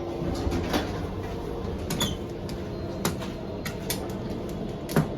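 Schindler elevator doors opening at a landing, with a series of sharp, irregular clicks and knocks, the loudest near the end. A steady hum stops about half a second in.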